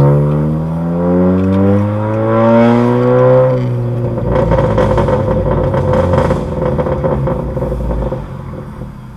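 Honda Accord 1.5-litre turbo four-cylinder with a straight-through exhaust (downpipe, front pipe, resonator and muffler deleted), loud and heard from inside the cabin, revving up steadily under hard acceleration. About three and a half seconds in, the rising note breaks off into a rougher, crackling exhaust sound that fades toward the end.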